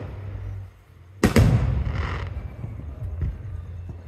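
Aerial firework shells bursting: two sharp booms in quick succession about a second in, followed by a rumble that fades over the next second, then a faint pop near the end.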